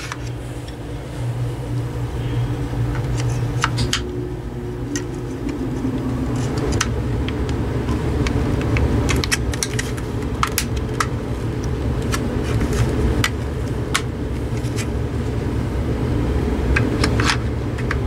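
Scattered small plastic clicks and rattles of AA batteries being taken out of and refitted in a plastic battery compartment, over a steady low hum.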